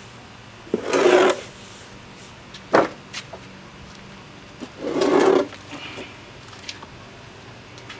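Handling noises: two short rubbing scrapes about four seconds apart, with a single sharp click between them, over a faint steady hum.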